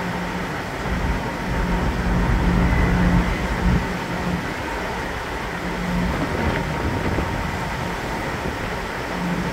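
Ferry's engines running with a steady low drone and a hum that comes and goes, under gusts of wind buffeting the microphone that swell between about one and four seconds in.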